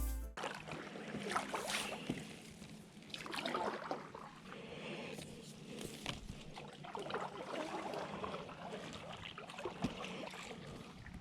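Paddle strokes in river water: irregular light splashes and trickling drips as the blade dips and lifts.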